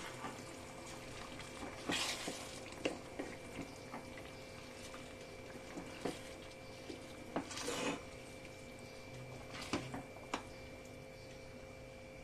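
Wooden spatula stirring rice and chicken curry in a kadhai: scattered soft scrapes and taps against the pan, with one longer scrape past the middle, over a faint steady hum.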